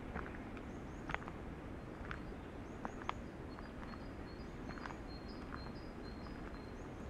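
Wind rushing steadily through the forest, with small birds chirping high, thin notes in short repeated runs. Footsteps on a leaf-strewn forest path give irregular dry crackles and clicks of leaves and small sticks underfoot.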